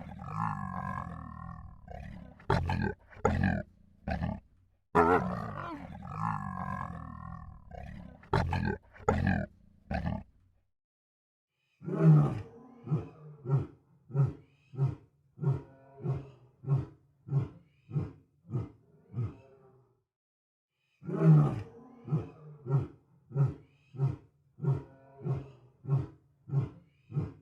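Big cat roaring: two long, drawn-out roars, then twice a loud roar followed by a run of shorter grunts that die away.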